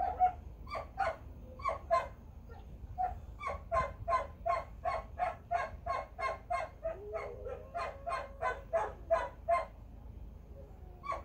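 A dog left alone barking over and over in short sharp barks, about three a second, with a brief whine partway through; the barking breaks off near the end, apart from one last bark.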